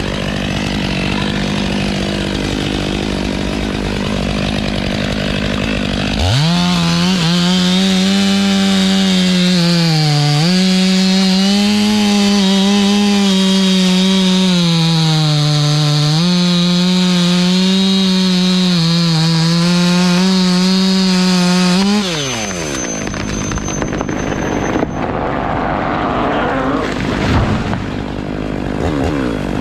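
Stihl two-stroke chainsaw running at low revs, then opened to full throttle about six seconds in and cutting through a poplar trunk for some fifteen seconds, its pitch sagging a few times under load before it drops back. Afterwards come crackling and a couple of thumps as the cut tree goes down.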